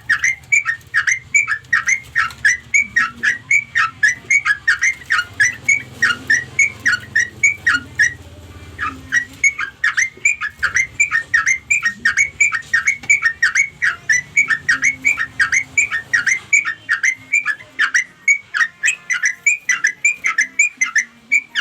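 Yellow-vented bulbul (trucukan) calling, a fast unbroken run of sharp chattering notes, about four a second, with a short pause a little before halfway. This is the call used to draw other bulbuls in.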